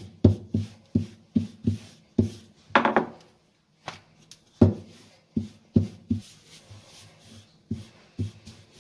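A wooden rolling pin rolling out paratha dough on a granite counter, knocking rhythmically about three times a second. The knocks stop for a moment near the middle while the dough is turned by hand, then start again.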